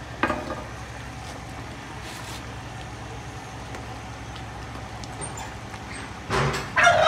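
A steady low hum throughout, with a short knock just after the start. Near the end a turkey gobbles loudly.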